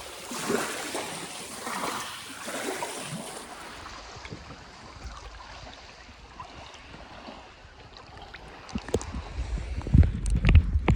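Small sea waves lapping and washing at the shore, swelling about once a second at first, then quieter. Near the end a low rumble sets in with a few sharp knocks, the loudest part.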